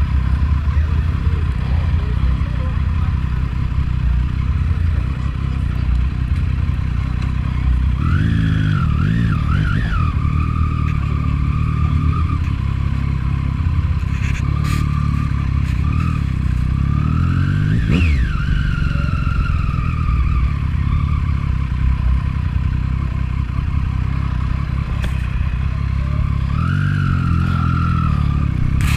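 Triumph 675 motorcycle's inline-three engine running on the move. Its pitch rises and falls several times as the throttle is opened and eased, climbing to a sharp high peak a little past halfway.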